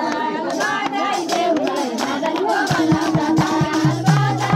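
A group of women singing a folk song with hand clapping; about two-thirds of the way through, madal hand drums come in with a steady beat of low, pitched strokes.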